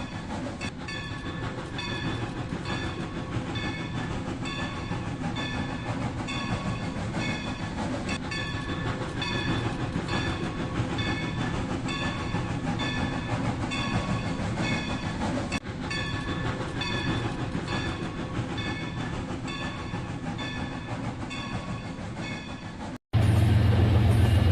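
Rail King toy train running on its track: a steady motor whir and wheel rattle under an electronic train sound effect that pulses evenly, about one and a half times a second. Near the end it cuts off abruptly to a louder, steady low hum.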